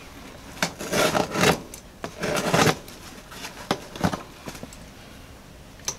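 Hands handling things on a workbench mat: several short rubbing scrapes, the loudest about a second in and around two and a half seconds in, with a few sharp clicks between them.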